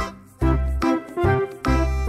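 Background music: a tune of short notes over a steady bass beat.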